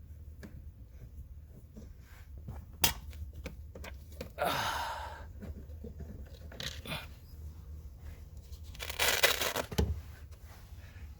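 Aftermarket plastic cup holder being worked loose and pulled out of a car's center console: scattered small clicks and knocks, a sharp click about three seconds in, and two scraping, rustling noises of about a second each, one near the middle and one near the end.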